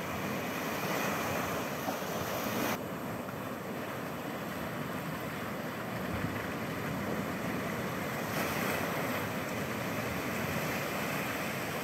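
Small sea waves breaking and washing up a sandy beach: a steady surf hiss that swells gently twice as waves come in.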